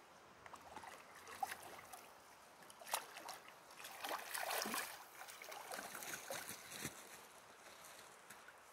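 Salmon splashing in shallow river water, a series of irregular sloshing splashes, loudest about three to five seconds in, over a faint river flow.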